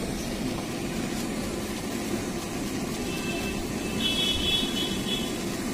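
Steady rumble of city street traffic. From about three seconds in, a high, rapidly pulsing warble sits on top of it.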